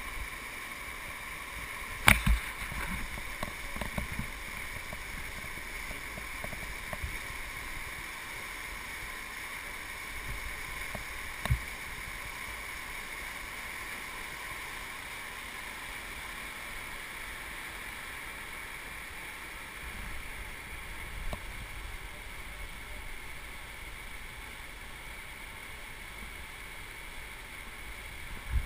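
Steady rush of whitewater pouring through a river rapid, with a sharp knock about two seconds in and another around eleven seconds.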